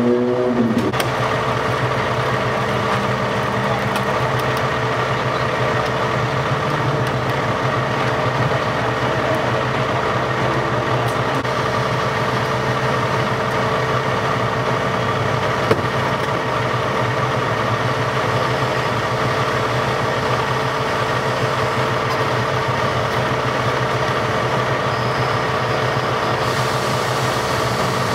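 A vehicle engine idling steadily with a constant hum. Near the start a rising motor whine stops about a second in, likely the battery-powered hydraulic rescue cutter, and a single sharp click comes about halfway through.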